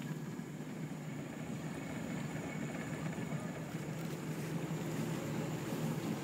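Outboard motor of a small river tour boat running steadily, a low even hum.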